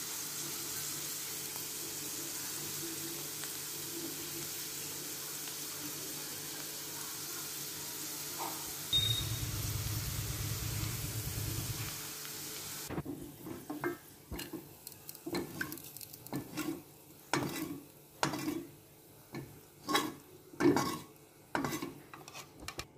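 Chopped aromatics sizzling in hot oil in a steel wok, a steady hiss while they brown, with a low hum for a few seconds about nine seconds in. About thirteen seconds in the sizzling stops, and a spoon clinks and scrapes again and again against a ceramic bowl as a sauce mixture is stirred.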